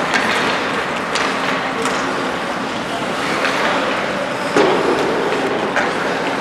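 Youth ice hockey game: a steady wash of skates scraping the ice, with a few sharp clacks of sticks and puck, one a little louder about halfway through.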